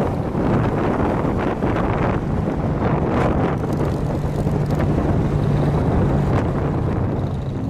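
Motorcycle engine running at a steady cruising speed, heard from the moving bike, with wind noise rushing over the microphone.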